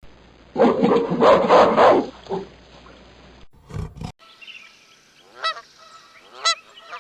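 Animal calls from spliced clips: a loud, rough call lasting over a second, a short call after a cut, then two short pitched calls about a second apart.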